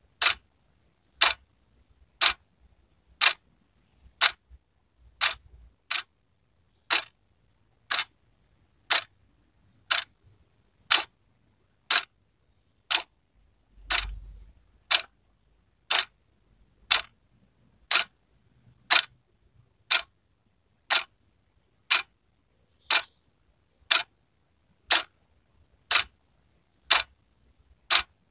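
Wall clock ticking steadily, one crisp tick about every second.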